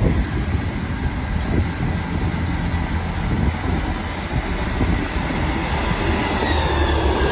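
Class 158 diesel multiple unit pulling away from the platform, its underfloor diesel engines running and growing louder as the train draws past. Faint thin high tones sound over the rumble.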